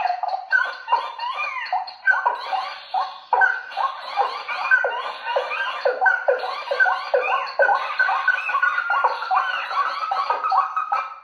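Recorded bird calls played loud through small 5 W horn loudspeakers driven by a 263B amplifier, as a bird-lure sound test: a fast, dense run of short repeated calls, several a second, that cuts off suddenly at the very end.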